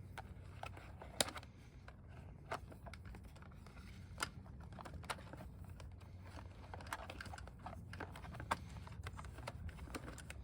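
Scattered light clicks and taps, irregular, a few a second, from hands working cables and plastic parts at the rear fender of an electric bike, over a low steady hum.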